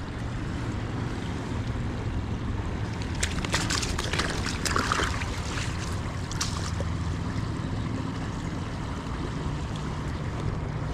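Steady rush of flowing river water with a low hum under it, and a few sharp clicks and a short rustle in the middle.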